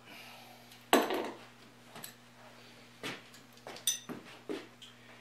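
Hand tools being handled as a bed bolt is snugged up with a wrench and the tools are gathered: a handful of sharp metallic clinks and knocks, the loudest about a second in. Footsteps on the plywood shop floor follow near the end.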